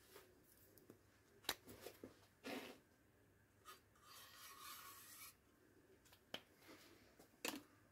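Faint scratch of a marker pen drawn along the edge of sheet metal clamped in a vise, marking a bend line, about four seconds in. A few light clicks of the metal and tools being handled.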